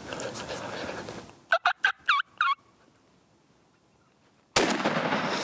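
A wild turkey gobbler gobbles, a quick run of about five short warbling notes around one and a half seconds in. About three seconds later a single 12-gauge shotgun blast goes off, sudden and loud, with a long echo trailing after it: the shot that kills the gobbler.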